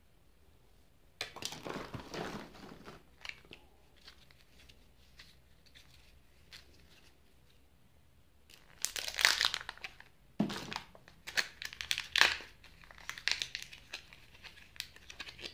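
Kinder Joy egg's wrapper being peeled and torn open by hand, crinkling in bursts: one about a second in, then a longer run of crackling from the middle to the end.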